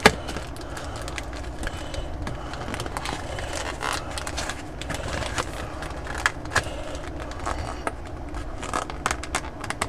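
Cardboard booster-pack box being handled and pried open from the side, rustling and scraping with scattered small clicks and ticks.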